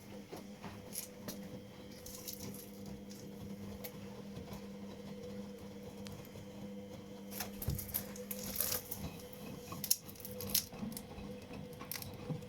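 Washing machine running a wash cycle: a steady motor hum under the soft patter and squish of wet laundry tumbling in the drum, with scattered light knocks.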